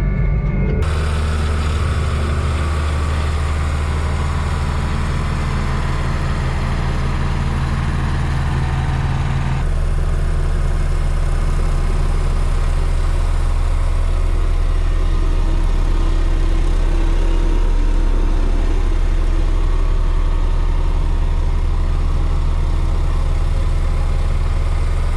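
Diesel engine of heavy earthmoving equipment running steadily with a deep, low drone; the sound changes abruptly about a second in and again about ten seconds in.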